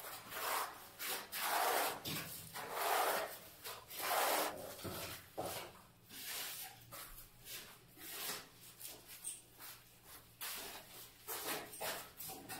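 Repeated rubbing and scraping strokes of a gloved hand and sponge pad working over tile adhesive and floor tile. The strokes are louder in the first few seconds, then softer and quicker, over a faint steady low hum.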